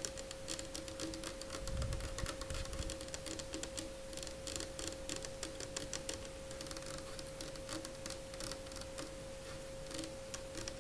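Rapid ASMR tapping, many quick light clicks in an uneven stream, over a faint steady tone.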